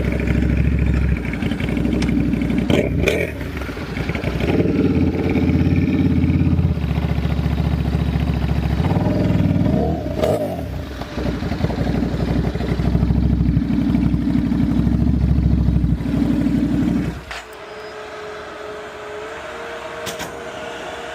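2009 Buell 1125R's V-twin running through a very loud custom muffler with no dB killer, at idle with a couple of swells in revs; the owner says the idle isn't quite right since the exhaust change and needs a tune. About 17 seconds in the engine sound drops away suddenly, leaving a quieter steady hum.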